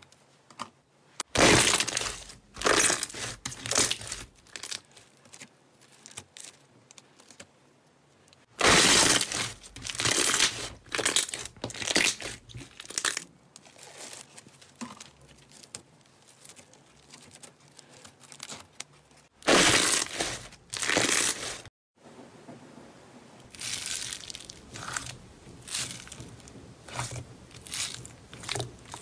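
Slime being squeezed and pressed by hand, some of it studded with foam beads, giving crackling, crunching squishes. They come in runs of several seconds with quieter stretches between.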